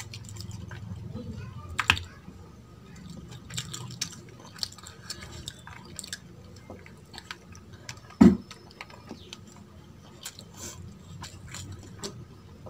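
Close-miked wet chewing of a mouthful of mutton and rice, with scattered sharp mouth clicks and one louder low thud about eight seconds in.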